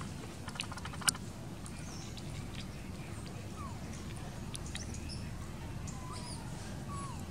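Outdoor background: a steady low rumble with faint scattered chirps and short whistling glides, and a sharp click about a second in.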